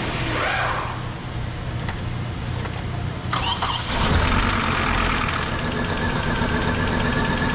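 2008 Hummer H3 engine cranking on the starter for about four seconds, then catching and settling into a steady idle. It runs with a slight misfire because one ignition coil is out of action; the number 5 coil was found shorted and blowing the fuse.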